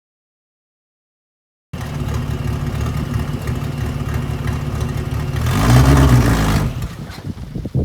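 A car engine starts sounding after a second and a half of silence, runs steadily, then is revved briefly and louder about six seconds in before dropping back.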